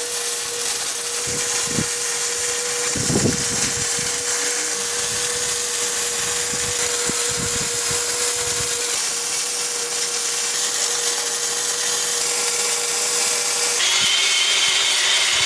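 Arc welder running a continuous bead, a steady hiss with a faint steady hum, as an end cap is welded onto the steel smoker tank. About 14 seconds in it gives way to an angle grinder with a higher whine, smoothing the weld.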